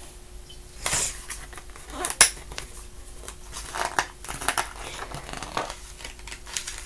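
Paper rustling and knocks as a picture book is handled and its pages turned, in several short bursts, the loudest about two seconds in.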